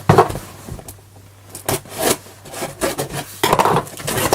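Cardboard shipping box being opened by hand: irregular scraping and rubbing of cardboard, with a sharp knock at the start.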